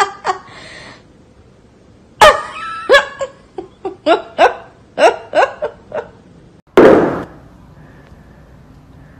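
A person laughing in short, high-pitched bursts, about a dozen giggles falling in pitch. About seven seconds in comes a single loud, breathy burst.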